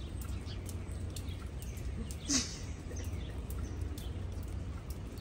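A small dog's rubber-soled booties tapping lightly and irregularly on wet pavement as she walks, over a steady low city rumble. A short, louder sound comes a little over two seconds in.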